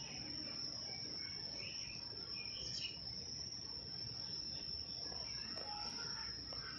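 A steady high-pitched insect trill, with a few faint short chirps in the first three seconds.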